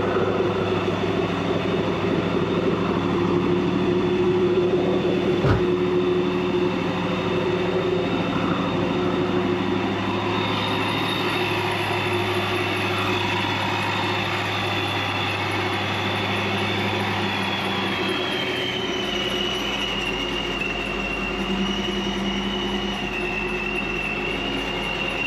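Ford Mustang 5.0 V8 idling steadily with a high whine over the engine note. About 18 seconds in, the idle settles to a lower pitch. A single sharp click comes a few seconds in.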